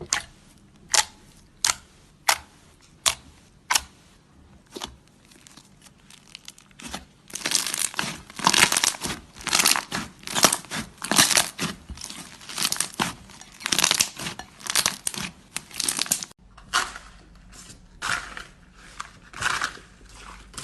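Slime being pressed and squeezed by hand, giving crackly, crunching pops: a few separate presses at first, then after a short lull a dense run of them.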